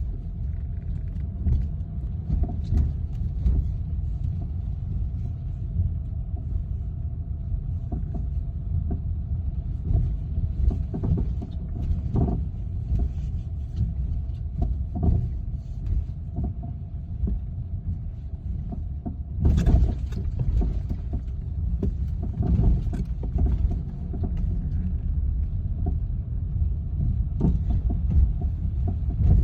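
BMW F30 3 Series car with a steady low rumble, over which come irregular sharp knocks every few seconds, the loudest about twelve and twenty seconds in. This is the knocking noise whose source the owner is trying to find.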